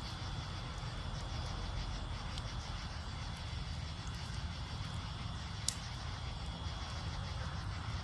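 Fire burning with a low steady rush and one sharp pop about two-thirds of the way through. A faint steady insect trill sounds underneath.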